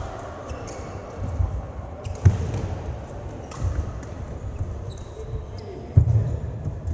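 Dull thuds of a ball being bounced or struck during play, several of them, the two loudest about two seconds in and near the end.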